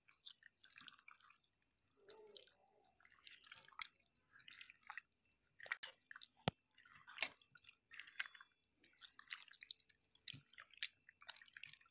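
Faint, wet squelching of hands kneading raw chicken into a yogurt and spice-paste marinade in a steel bowl, broken by a few sharp clicks.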